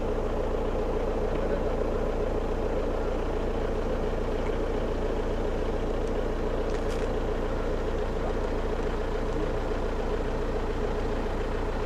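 Steady engine and road noise of a car driving slowly, heard from inside the cabin.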